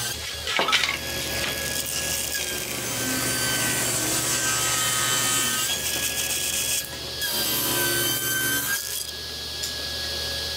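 Table saw running and ripping maple, the motor's steady whine under the hiss of the blade cutting through the wood.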